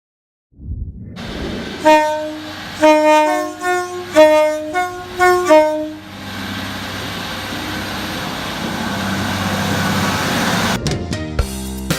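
Train horn sounding a chord in about seven short blasts, the notes shifting between blasts, over a low rumble, followed by the steady rushing noise of the train passing. Music starts near the end.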